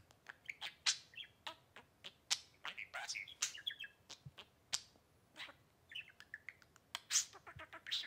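Budgerigar chirping: a string of short, sharp, high chirps, with quick runs of chatter in between.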